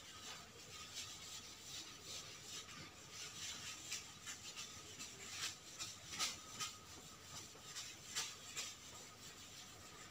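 Marker pen writing on a whiteboard: faint, irregular short rubbing strokes.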